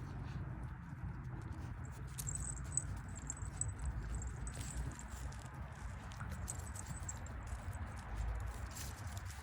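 Six-week-old puppies moving about on the grass: scattered small rustles and taps over a steady low rumble.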